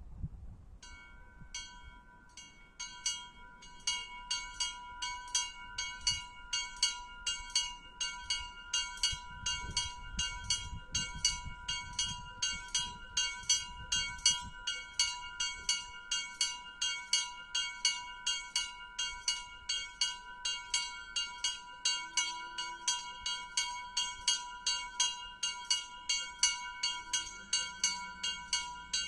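Two small bells in a bell gable rung by hand in a fast, even peal of about three strikes a second, the two pitches sounding together. The strikes begin sparsely about a second in and settle into a steady rhythm a few seconds later.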